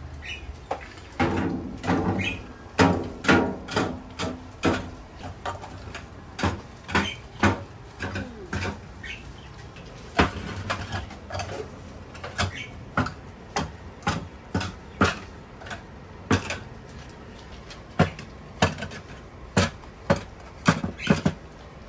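Cookware and utensils knocking and clanking irregularly as the cakes are prepared, about one to three strikes a second, some of them ringing briefly.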